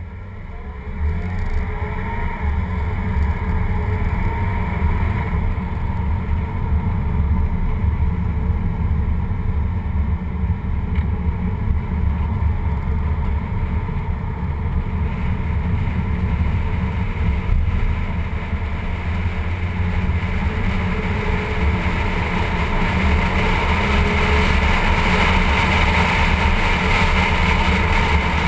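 Wind buffeting the microphone of a low, front-mounted action camera on a moving car, over steady tyre and road noise. The rush grows louder over the last several seconds.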